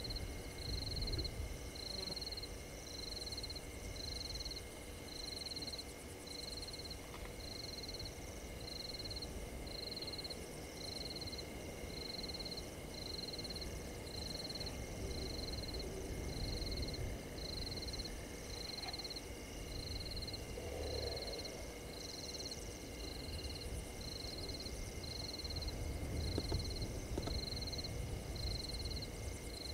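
A frog calling at night: a short, high note repeated very evenly, a little more than once a second, without a break. A low rumble underneath swells and fades.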